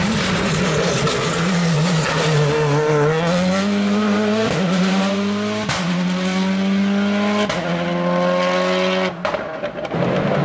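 A 2013 World Rally Car's 1.6-litre turbocharged four-cylinder engine accelerating hard, climbing through the gears with three quick upshifts in a row, then lifting off a second before the end.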